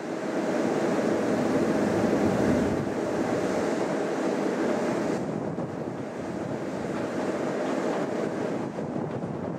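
Newag Impuls electric multiple unit rolling slowly into a station: a steady rumble of wheels on rails and running gear, loudest in the first few seconds and easing after about five, with some wind noise on the microphone.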